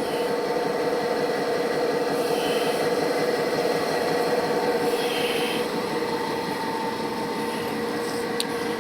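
Macobe VP60 welding positioner's electric tilt drive running under power, a steady mechanical hum with a constant whine, and a faint click near the end.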